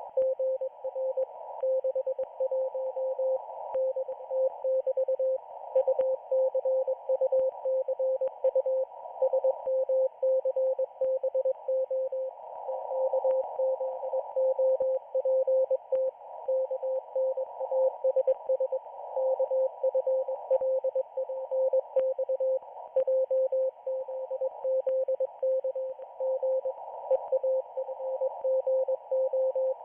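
Morse code (CW) from the Israeli Navy shortwave station 4XZ, heard on a shortwave receiver. A single steady beep tone is keyed on and off in quick dots and dashes over a hiss of band noise, with occasional crackles of static.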